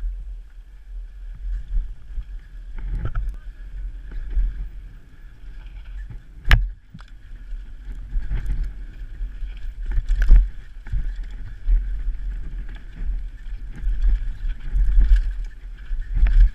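Wind rumbling on the microphone of a downhill mountain bike descending a dirt trail at speed, with knocks and rattles from the bike over bumps, the sharpest about six and a half seconds in.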